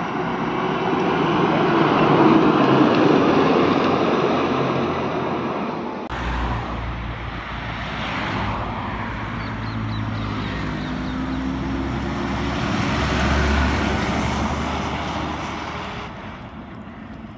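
Passenger buses driving past on a road, their diesel engines and tyres swelling as each bus nears and passes. The sound changes abruptly partway through to a second bus with a deeper engine hum and whooshing rushes of air, loudest as it passes close and then fading.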